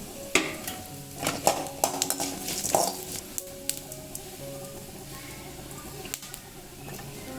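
A spoon stirring spices as they roast in a pan, scraping and clinking against the metal, with a light sizzle; the clinks bunch together in the first three seconds and then thin out. Soft background music plays along.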